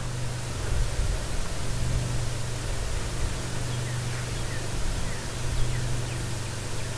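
Steady, even hiss with a low hum underneath. A few faint, short, falling bird calls sound in the middle and later part.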